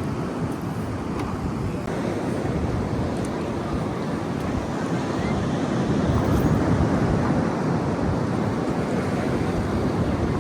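Steady wind buffeting the microphone, mixed with the wash of ocean surf.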